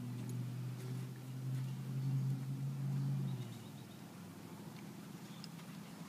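A low, steady motor hum that fades out about three and a half seconds in, with a few faint ticks.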